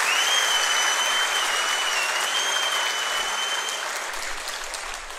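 Audience applauding, the clapping slowly dying away near the end. A long, high, slightly wavering tone is held over the clapping for the first few seconds.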